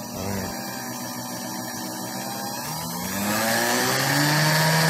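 Electric mixer motor spinning a washing machine pump that is used as a generator, running with a steady whine. About three seconds in, the pitch rises and the sound gets louder as the speed control is turned up.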